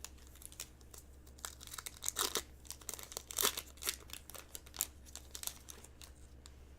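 A trading card pack's wrapper being torn open and crinkled, in a run of irregular crackles that are loudest about two and three and a half seconds in and die away near the end.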